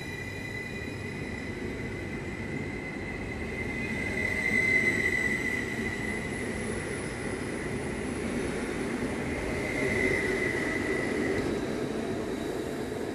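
Stadler FLIRT electric multiple unit (NSB Type 74/75) rolling past along the platform and pulling away, a steady rail rumble that swells twice. Over it runs a steady high electrical whine.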